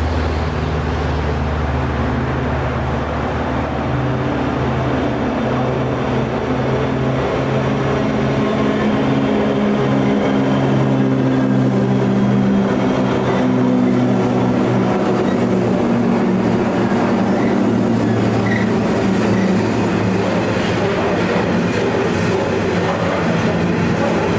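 Diesel-hauled freight train running, with its locomotive engine note steady and loud over the rumble of the train, drifting slowly lower in pitch in the second half.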